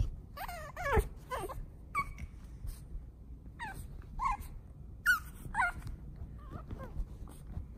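Pug puppy whining as it plays: a string of short, high whines, each falling in pitch, coming every second or so, with a few knocks mixed in.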